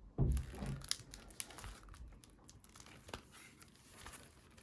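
Plastic shrink wrap on a sealed CD album crinkling and tearing as it is picked at by hand to get it open, with a dull thump of the album being handled just after the start.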